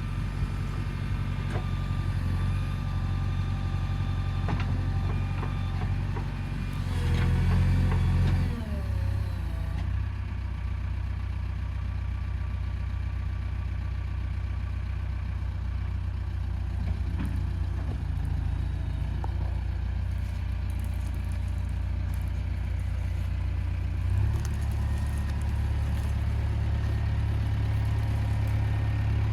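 JCB 3DX backhoe loader's diesel engine running steadily. It rises in revs or load for about a second and a half around seven seconds in, then drops back, and the note steps up slightly about 24 seconds in.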